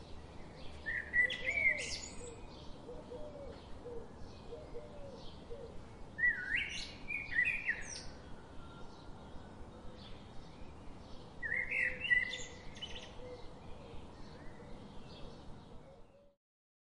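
Birds singing: three loud phrases of gliding song about five seconds apart, over a steady quick chirping of two or three calls a second and faint lower calls. It cuts off shortly before the end.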